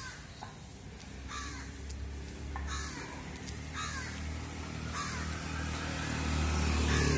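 Crows cawing repeatedly, with a short falling caw about once a second. Near the end a motor scooter's engine hum grows louder as it passes.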